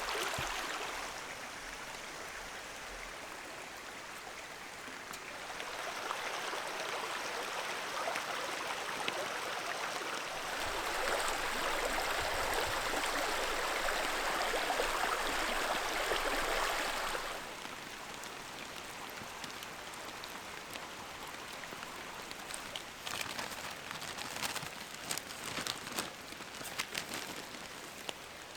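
Steady rushing wash of a forest stream and rain, changing in loudness in steps and loudest about halfway through. In the last third, scattered raindrops tick sharply on the tarp.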